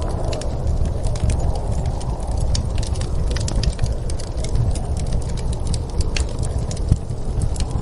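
Wood fire crackling, with many small sharp pops, over a steady low rumble of snowstorm wind.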